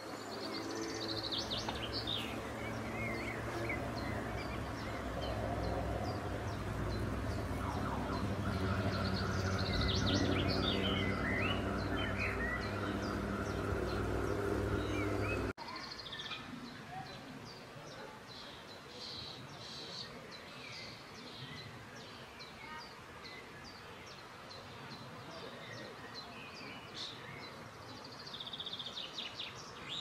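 Songbirds chirping and singing in short phrases over a steady low hum. The hum cuts off suddenly about halfway through, leaving the birdsong over a quieter background.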